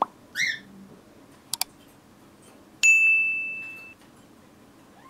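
Sound effects of a like-and-subscribe animation: a click, a short rising chirp, a quick double mouse click, then a bright notification ding about three seconds in that rings for about a second.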